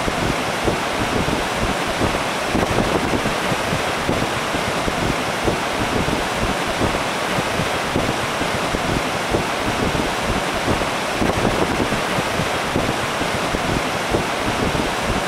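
Mountain stream rushing over rocks: a steady, even roar of running water.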